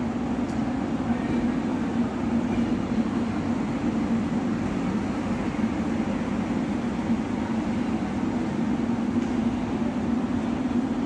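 Indian Railways double-decker passenger coaches rolling past along the platform: a steady low rumble of wheels and undercarriage.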